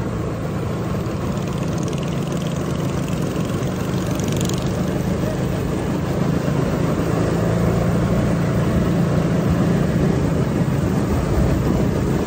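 Go-kart engine droning steadily as the kart drives around the track, with a rushing noise over it. It grows a little louder about halfway through.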